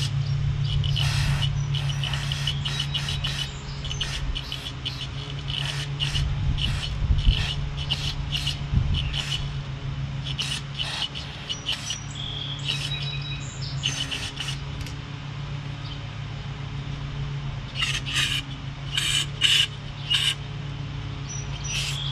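Aerosol carburetor cleaner sprayed in short hissing bursts up into the emulsion tube of a small push-mower engine's carburetor with the float bowl removed, to clear dirt behind a start-then-stall fault. A steady low hum runs underneath, birds chirp, and there are a couple of dull low bumps around the middle.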